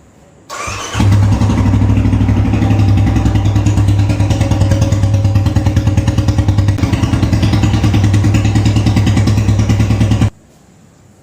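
Royal Enfield Classic 350's single-cylinder engine started with a brief crank, then idling with even exhaust pulses through a long Punjab silencer, and switched off suddenly near the end. The silencer's mounting joint has just been tightened to stop an air leak there, which had been changing the exhaust note.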